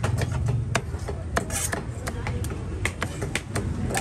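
Large curved chopper dicing giant conch meat on a wooden chopping block: quick, irregular knocks of the blade striking the wood, over a steady low rumble.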